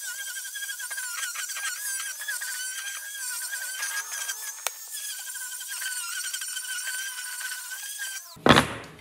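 Angle grinder with a sanding pad running with a high whine, the pitch wavering slightly as it is pressed against and moved over the wood. Near the end the whine cuts off and there is a single sharp knock.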